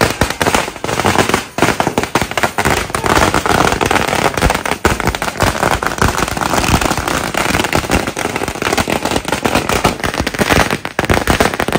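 Firecrackers going off in a rapid, irregular stream of bangs that stops suddenly near the end.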